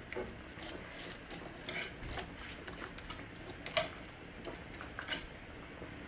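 Wire whisk stirring seafood through a thick white sauce in a pan, giving faint, irregular clicks and ticks of the wires against the pan, one a little sharper about two-thirds of the way through.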